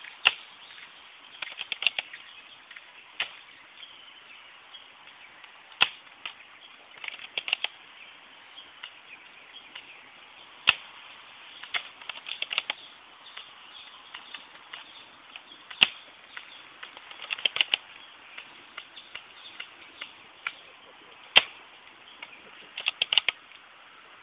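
Maruzen airsoft sniper rifle firing single shots about every five seconds, each a sharp snap, followed a second or so later by a quick clatter of small clicks as the rifle's action is worked for the next shot.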